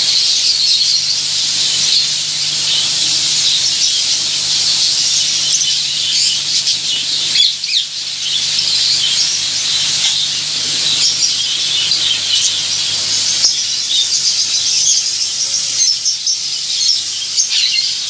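Polyurethane spray-foam gun hissing steadily as it sprays foam onto a wall, with a faint low hum beneath.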